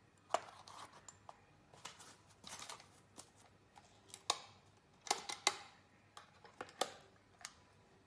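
Handling sounds of a small hinged presentation box with a metal clasp: a string of sharp clicks and taps, about eight, with light rustling between them, as the box is worked and its lid closed.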